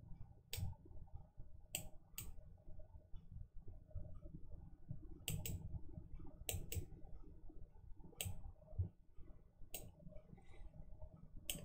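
Computer mouse clicking: about ten faint, sharp clicks at irregular intervals, some in quick pairs.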